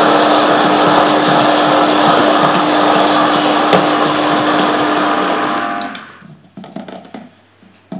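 High-speed blender running flat out on a thick mix of dates, nuts and dried fruit, with the tamper pushed down through the lid. The motor winds down and stops about six seconds in, followed by a few light knocks.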